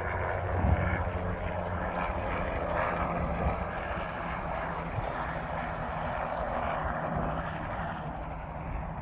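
Low-flying Bell 222 helicopter passing, a steady drone of rotor and engine that slowly fades near the end.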